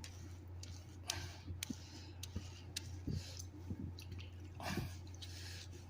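Wet dreadlocks being squeezed and worked by hand in soaking water: soft, irregular wet squishes with small clicks.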